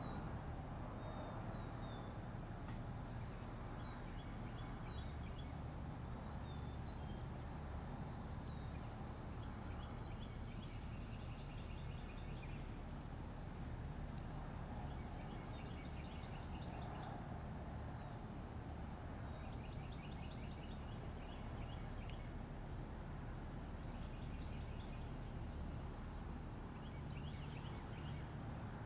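Outdoor ambience: a steady high hiss and low hum, with short pulsed chirps of insects every few seconds and a few quick, falling bird-like chirps in the first several seconds.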